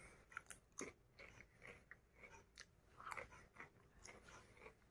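Faint crunching and chewing of a Pringles potato crisp in the mouth: irregular small crackly crunches, a little louder about three seconds in.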